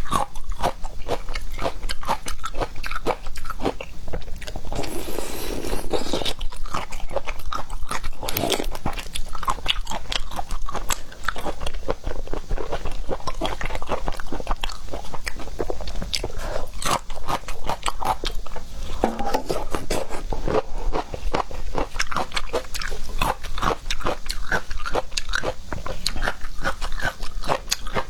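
Close-miked eating of seafood: biting and chewing with many short crunches and clicks, one after another.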